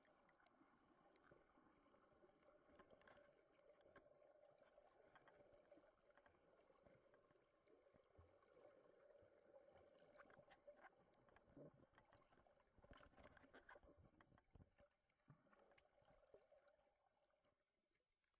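Near silence: faint, muffled underwater noise picked up through a waterproof camera housing, with scattered small clicks, fading near the end.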